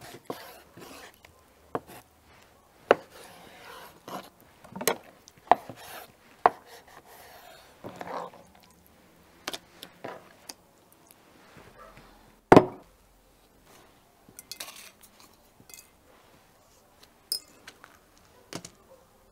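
Knife knocking on a wooden cutting board as raw stingray is sliced, mixed with clinks and taps of metal bowls and glass spice jars being handled. Scattered sharp knocks, one much louder than the rest a little past halfway.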